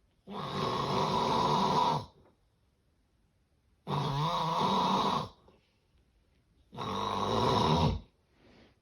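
Loud snoring from a sleeper with severe sleep apnea: three long, rasping snores, each about a second and a half, with quiet gaps of about two seconds between them.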